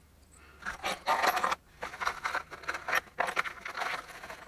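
Small metal parts of a selectable 4x4 locking hub clinking and scraping as the hub is handled and fitted.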